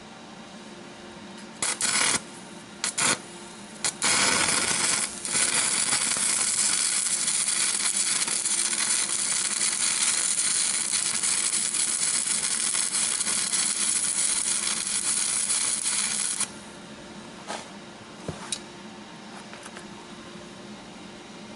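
Electric arc welding on steel: the arc is struck in a few short spurts, then runs as one steady crackling bead for about twelve seconds and cuts off sharply. A couple of small clicks follow.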